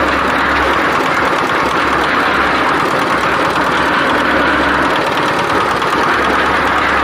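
Portable concrete mixer running steadily, its engine and turning drum making a continuous mechanical noise.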